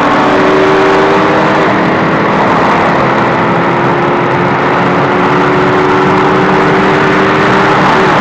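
Ford Mustang GT V8 running hard at speed, its engine note holding a nearly steady pitch with small pitch changes about two seconds in and near the end, under loud wind and road noise.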